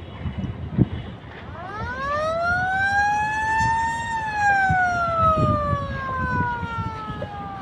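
A siren wailing: one pitched tone that starts about one and a half seconds in, rises smoothly for about two and a half seconds, then falls slowly. A low rumble of wind on the microphone runs underneath.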